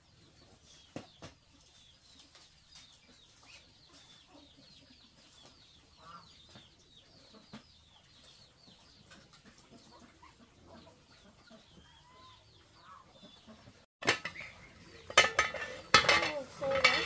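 Chickens clucking and peeping faintly, with scattered small clicks. About fourteen seconds in, the sound cuts and a loud burst of clattering and knocking follows, like pots and dishes being handled.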